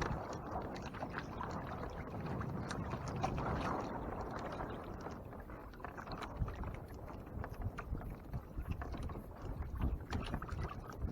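Water lapping and sloshing against a kayak hull, with wind noise and scattered light clicks.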